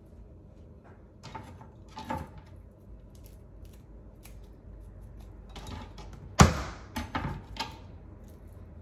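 A few sharp knocks and thumps, the loudest about six and a half seconds in with a quick cluster after it: garlic cloves being crushed flat to loosen their skins.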